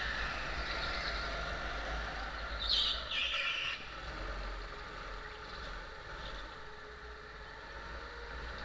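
Go-kart running at racing speed, heard from a camera mounted on the kart, with a steady rumble and drone. About three seconds in comes a short high-pitched screech lasting about a second.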